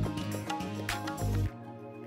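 Background music; its deep bass drops out about three-quarters of the way through.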